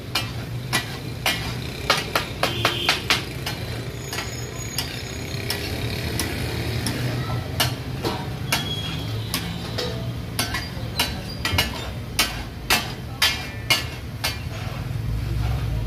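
Two metal spatulas clattering on a large flat iron griddle (tawa) as brain masala is chopped and turned: the 'taka tak' rhythm of sharp, irregular metal strikes, in quick runs with short pauses between, over a steady low hum.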